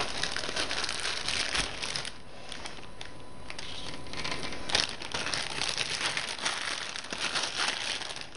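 Irregular crinkling and rustling of paper, crackly and uneven, easing off for a couple of seconds midway before picking up again.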